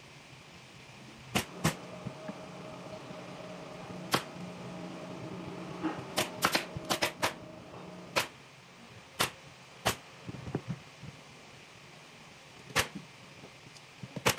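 Pneumatic upholstery staple gun firing about a dozen sharp shots at irregular intervals, with a quick run of five or six in the middle, fixing the fabric to the wooden frame.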